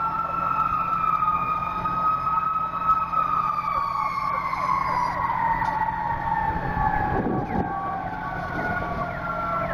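Fire apparatus siren: one long tone held steady for about three seconds, then gliding slowly and evenly down in pitch.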